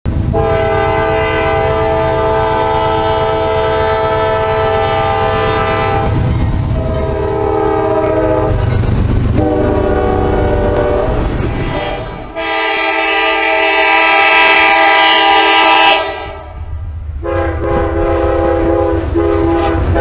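Diesel locomotive air horns: several different multi-note horn chords, each held for a few seconds and then cut abruptly to the next, about five in all, over the rumble of passing trains.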